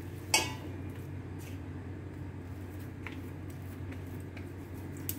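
Hands kneading and pressing soft dough in dry flour on a steel plate: faint handling sounds with a sharp tap about a third of a second in and a few light ticks after, over a steady low hum.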